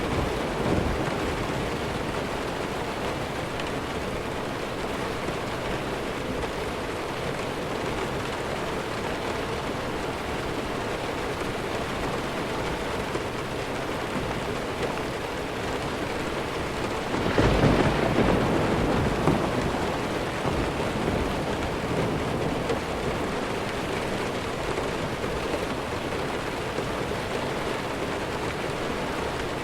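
Steady heavy rain falling, with a roll of thunder that swells up about two-thirds of the way through and fades over a few seconds.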